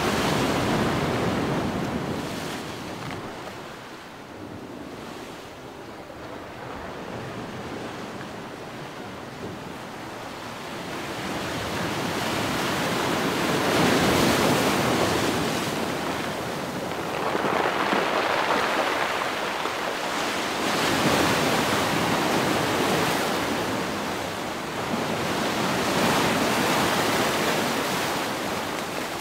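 Sea surf breaking on a rocky, pebbly shore, the rush of water swelling and falling back several times as waves come in.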